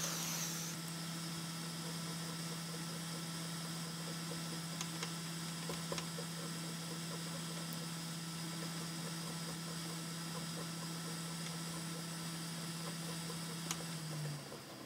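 Hot air rework station's blower running with a steady hum and hiss, a few faint clicks over it; about fourteen seconds in the hum falls in pitch and fades as the blower slows.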